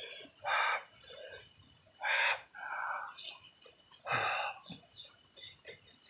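A chicken calling: three short, harsh calls about one and a half to two seconds apart, with faint clicks between them.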